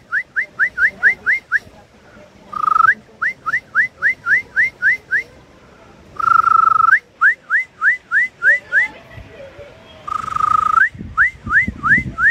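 A songbird singing the same loud whistled phrase four times, a few seconds apart. Each phrase is a short held whistle followed by a quick run of rising, upslurred notes, about five a second.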